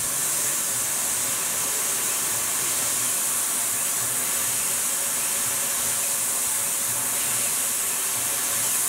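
Steady hiss of air blasting from a nozzle onto a small end mill cutting an aluminium block on a CNC mill, with the spindle and cut running underneath.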